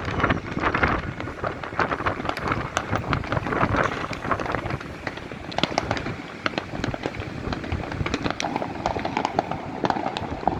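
Many fireworks and firecrackers going off across a city at once: a dense, continuous crackle of sharp pops over a steady rumble.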